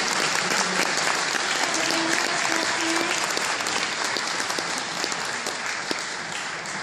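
Audience applauding, the clapping slowly dying away over the last couple of seconds.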